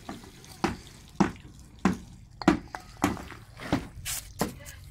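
Footsteps on brick paving: a regular series of short, sharp taps, about one every 0.6 seconds.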